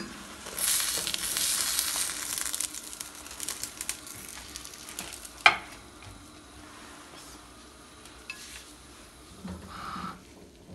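Mutabbaq pastry frying in oil in a pan: a sizzle that flares up about half a second in and eases off after a few seconds, going on more quietly afterwards. Two sharp knocks, at the start and about five and a half seconds in.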